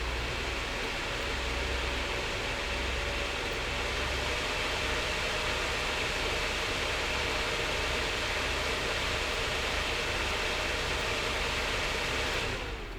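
Graphics card cooler fans running at speed: a steady rush of air with a faint steady whine. Near the end the whine drops in pitch and the sound fades, as the fans spin down.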